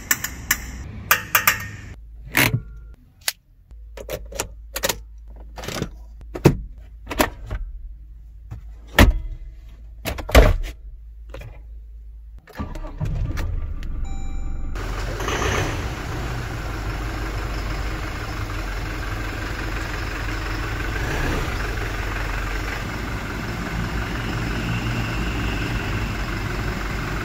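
A string of sharp clicks and knocks from the truck's trim, controls and latches being handled. About twelve seconds in, the 2023 Toyota Hilux's 2.4-litre four-cylinder turbo diesel starts and settles into a steady idle.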